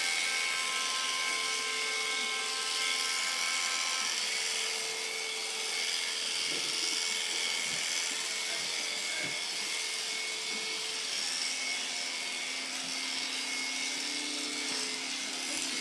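Electric shearing handpiece running steadily as it clips through an alpaca's fleece: an even motor buzz with a high, steady whine.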